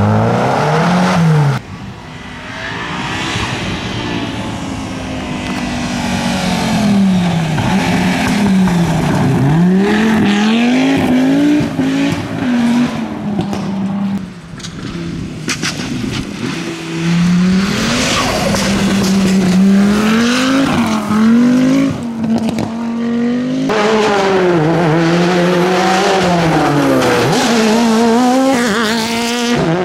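Rally cars driven flat out one after another, engines revving hard with the pitch climbing and dropping through gear changes and lifts, with tyre and gravel noise.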